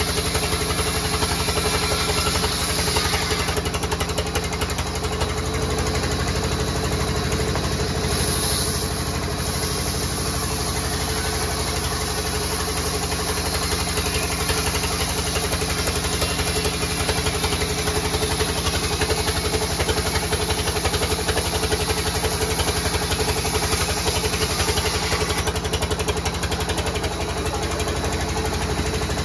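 Large belt-driven sawmill band saw running steadily as a thick timber slab is fed through the blade. Its drive makes an even, engine-like hum with a fast, regular pulse.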